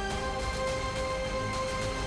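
Background music: long held notes over a low pulsing rumble.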